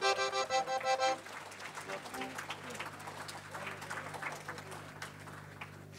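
A short held chord on an electronic keyboard, cut off about a second in, followed by light, scattered applause from a small audience.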